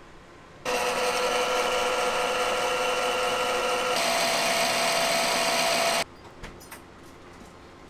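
Sailrite sewing machine's motor running steadily at speed for about five seconds, winding a bobbin. It starts sharply, shifts slightly in pitch partway through, then stops suddenly, followed by a few faint clicks of handling.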